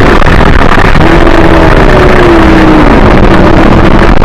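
Cartoon sound track boosted into heavy distortion: a loud, harsh wash of noise with a faint held tone under it that sinks slowly in pitch.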